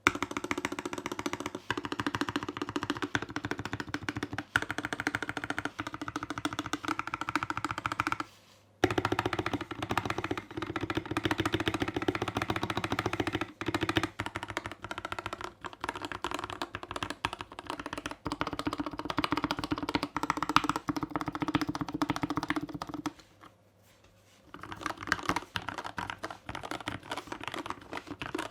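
Continuous fast typing on a GK64S 60% hotswap keyboard with lubed Gateron Yellow Milky Top linear switches, a plastic case with an aluminium plate, foam added and Holee-modded, lubed stabilizers: a dense run of keystrokes. The typing stops briefly twice, about eight seconds in and again about twenty-three seconds in.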